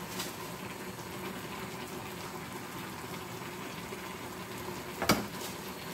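A hot frying pan of fish and vegetables in sauce sizzling and bubbling steadily with the heat just turned off, and one sharp clink against the pan about five seconds in.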